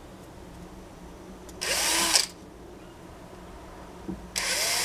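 Power drill run in two bursts, a short one about two seconds in and a longer one starting near the end, drilling into the gauntlet's metal plate. The motor's whine rises as it spins up and drops as it stops.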